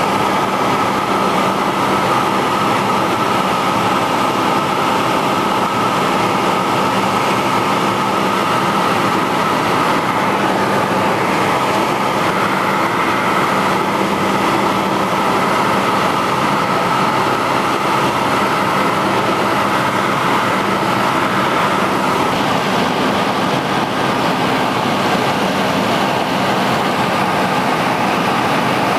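Cessna 172's piston engine and propeller running steadily in flight, heard from inside the cabin as a constant drone.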